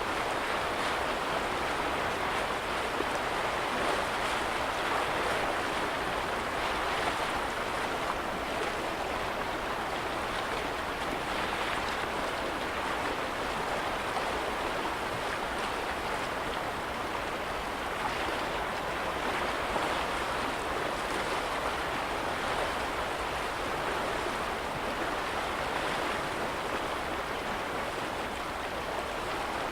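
Small lake waves lapping at the shore: a steady watery wash with soft, irregular splashes.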